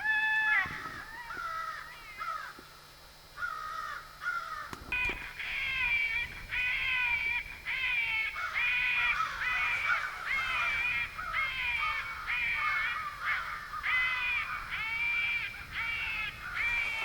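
Crow caws, harsh and repeated: a few scattered calls at first, then from about five seconds in a long, even series of roughly one caw every three-quarters of a second.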